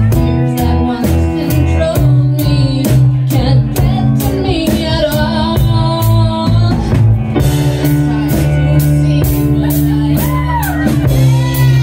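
Live band playing: a woman singing into a microphone over guitar, keyboard and drum kit, with a steady beat of cymbal strokes about two to three times a second.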